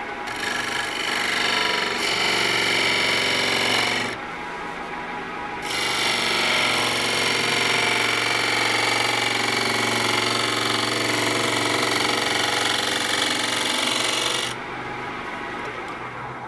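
A turning tool cutting the spalted tamarind bowl blank spinning on a Laguna Revo 1216 wood lathe: two passes, the first about four seconds long and the second about nine, with the lathe's steady hum continuing between and after them.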